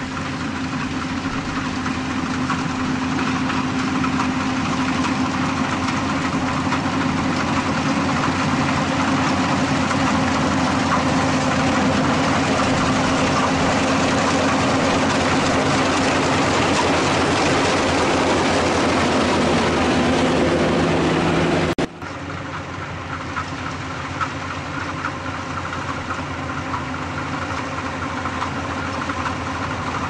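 Yanmar AW82GV rice combine harvester running steadily as it cuts rice, its diesel engine and threshing machinery making a continuous drone that grows louder as it draws near. About two-thirds of the way in the sound drops out for an instant and resumes somewhat quieter.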